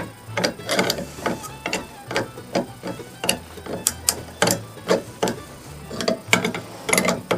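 Hand tools working on the broken head bolt of a 1947 Johnson TD-20 outboard: an uneven series of short metal clicks and scrapes, about three a second.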